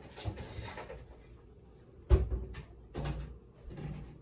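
Kitchen handling sounds: a short scraping rustle, then a sharp knock about two seconds in and two softer knocks after it, typical of a cupboard door or dishes being handled.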